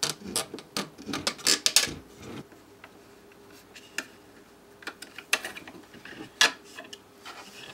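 Small laser-cut parts, screws and a hex key being handled and fitted together by hand. A quick run of sharp clicks and taps comes first, then a few single clicks.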